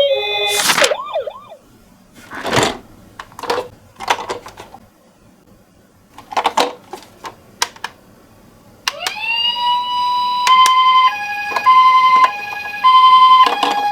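Toy ambulance minicar's electronic siren. After a few scattered knocks, it starts about nine seconds in with a rising tone and settles into the two-tone hi-lo ambulance siren, alternating between a higher and a lower note roughly every second.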